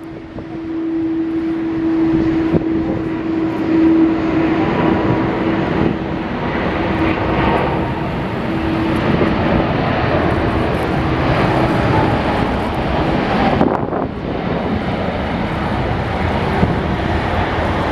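Jet airliner's engines running loud and steady as it passes, a steady tone in the roar fading out over the first half.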